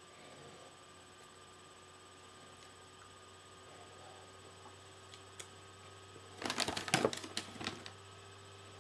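A quick flurry of sharp taps and clicks lasting about a second and a half, a little over six seconds in, from hands striking each other or the body while signing. A faint steady electrical hum runs underneath.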